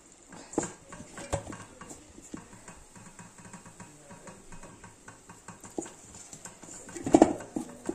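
Hand mixing and kneading flour and water into naan dough in a stainless steel bowl: soft squishing with scattered knocks against the bowl, the loudest a quick cluster of knocks about seven seconds in.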